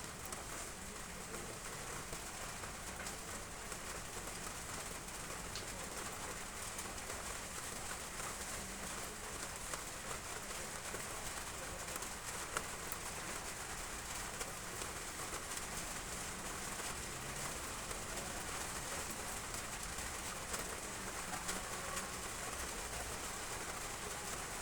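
Heavy rain falling on roof tiles, a steady hiss, with a dove cooing.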